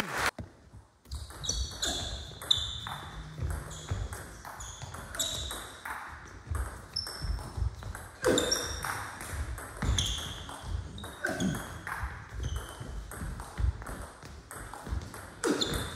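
Table tennis ball being played in a rally: a quick series of sharp ticks as it strikes the rackets and the table, each with a short high ring.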